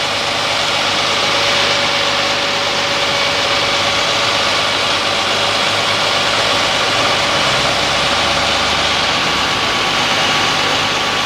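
An engine running steadily at idle, with a constant hiss and a steady whine over it.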